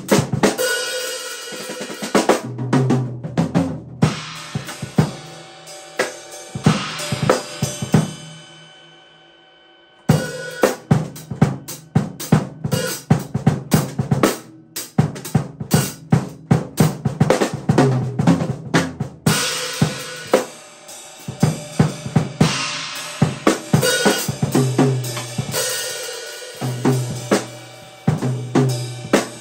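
A drum kit played with sticks: snare, bass drum, hi-hat and cymbals keeping a steady beat. About eight seconds in the playing stops and the sound dies away for a couple of seconds, then the beat starts again.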